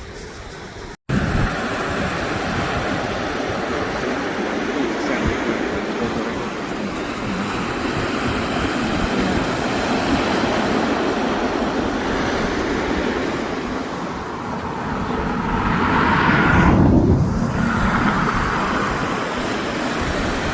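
Surf breaking and washing on a beach, with wind rumbling on the microphone; the noise of the waves swells louder about three-quarters of the way through.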